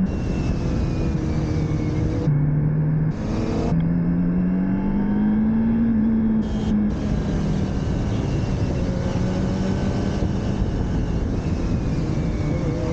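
Motorcycle engine running under load. Its pitch drops sharply a little over two seconds in. It climbs again from about four seconds, then drops at about seven seconds and again near the end, as at gear changes. A steady rush of wind noise runs beneath it.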